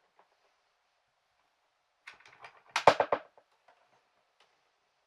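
A quick run of sharp clicks and knocks, about eight in roughly a second, starting about two seconds in and loudest near three seconds, with a few faint ticks around them.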